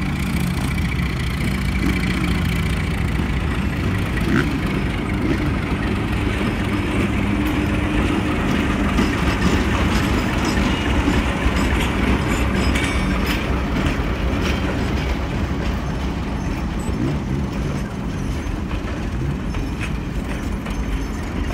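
New South Wales 48 class diesel-electric locomotive 4833 passing close by with its engine running, followed by heritage passenger carriages rolling past with clicks from the wheels.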